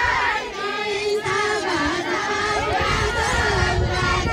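Women's voices singing a Deuda folk song together, a held, wavering melody, over the voices of a crowd of onlookers.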